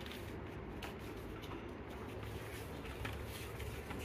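Pages of a paper LEGO instruction booklet being turned, a few soft papery rustles and flicks over a low steady hum.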